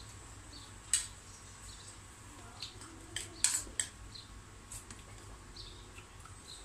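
Metal spoon clinking and scraping against a bowl and serving tray while eating: a few sharp clicks, one about a second in and a quick cluster of them a little past the middle, with faint softer ticks between.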